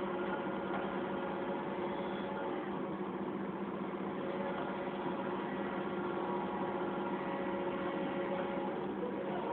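Heavy diesel engine idling steadily, an even hum with a constant pitch.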